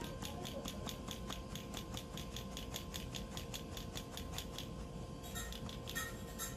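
Stainless-steel mesh sieve of flour being tapped by hand, a steady rhythmic patter of about five light taps a second. Near the end the rhythm breaks into a few irregular metal clicks as the sieve is lifted off the bowl.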